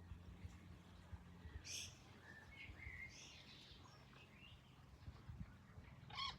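Quail making unfamiliar high squeaks: a short squeak a couple of seconds in, then a run of soft chirps and twitters, and another sharp squeak near the end.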